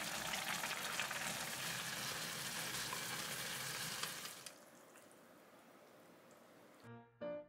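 Ramen noodles and onions in red rabokki sauce bubbling and sizzling in a pan: a dense, crackling simmer. After about four and a half seconds it drops to a faint hiss. Piano music starts near the end.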